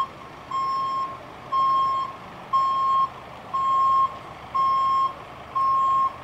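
Delivery van's reversing alarm beeping as it backs up: a steady single-pitched beep about once a second, six times, stopping near the end, over the faint run of the van's engine.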